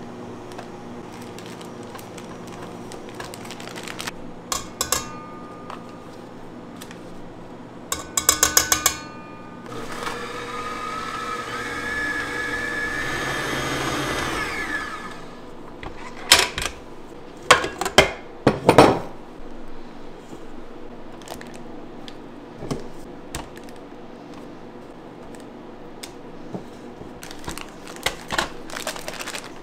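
Electric kitchen mixer running for about five seconds, its pitch sliding down as it is switched off and spins down. Around it are kitchen clatter: a quick run of clicks just before it starts, then several loud sharp knocks of utensils and bowls.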